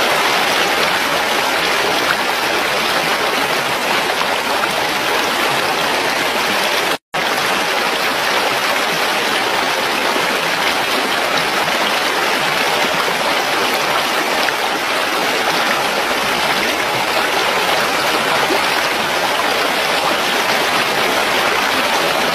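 Rushing mountain stream: water running steadily over rocks. The sound cuts out for an instant about seven seconds in.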